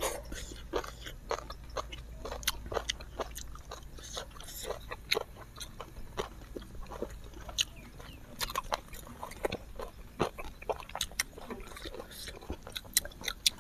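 Close-miked chewing and mouth smacking of people eating spicy instant noodles with chopsticks, heard as many short, irregular clicks and smacks.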